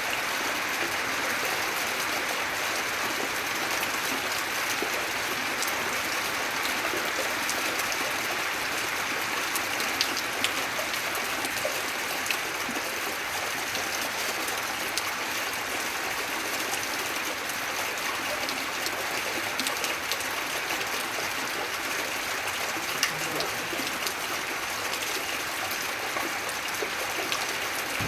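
Gentle, steady rain falling without a break, with a few sharper drop ticks here and there.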